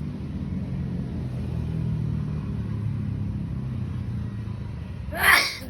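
A vehicle engine rumbles low and steady, then about five seconds in a parrot gives one short, loud call.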